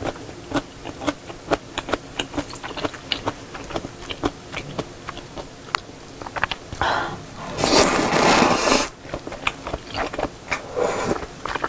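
Close-miked eating of jjamppong noodles: wet chewing clicks and smacks, then a loud slurp of noodles lasting about a second, followed by more chewing and a sip of the broth near the end.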